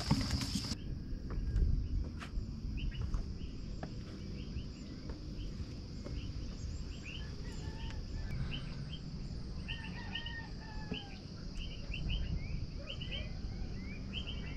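Outdoor hillside ambience: a steady high-pitched insect drone with many short, repeated bird chirps over a low rumble. In the first moment there are a few brushing footsteps through undergrowth, before the sound changes.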